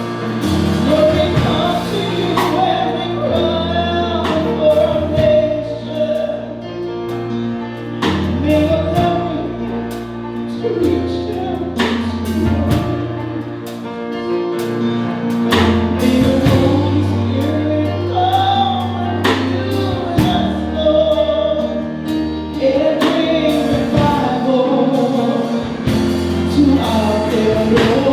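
A choir singing a gospel hymn over instrumental accompaniment: several voices carry a wavering melody over steady sustained bass notes, with regular percussive beats.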